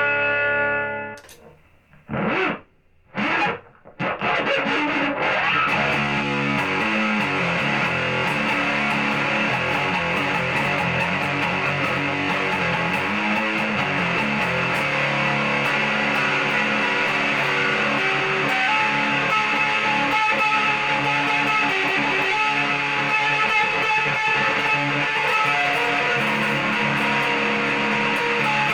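Squier Stratocaster electric guitar with a single hot-rails humbucker, played through distortion. A held chord dies away, two short chord stabs follow a second or so apart, and then continuous distorted riffing starts about four seconds in.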